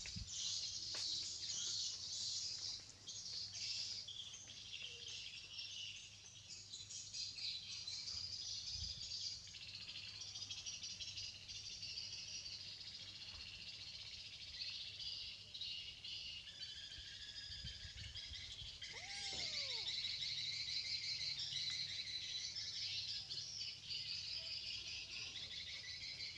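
Outdoor background of birds and insects chirping, a steady dense high-pitched chirring. About 19 seconds in, a single short call rises and falls once.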